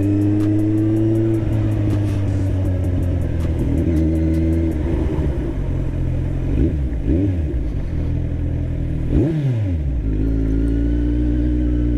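Kawasaki Z1000 inline-four engine running through aftermarket SC Project exhausts while riding, at a steady note. About halfway through the engine pitch rises and falls a few times, with a sharp drop near the end, then it settles back to steady running.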